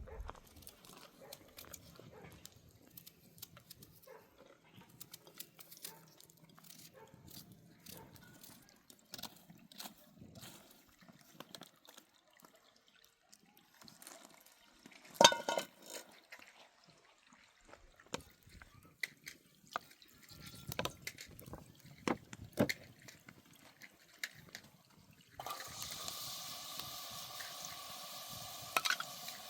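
Small clinks, knocks and splashes of water, with one sharp knock about halfway through. About 25 seconds in, a steady hiss of food cooking over the fire starts and keeps going.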